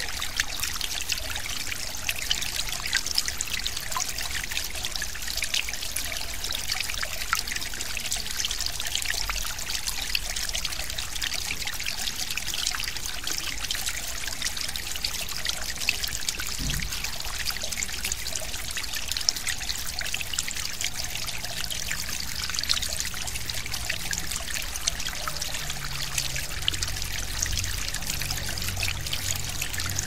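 Small forest stream flowing steadily: a constant trickling rush of water with many small splashes.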